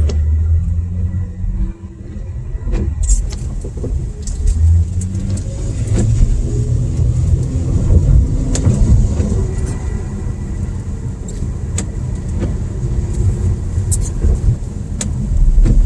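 Car driving, heard from inside the cabin: a steady low engine and road rumble, with tyre hiss rising in about three seconds in and scattered light clicks.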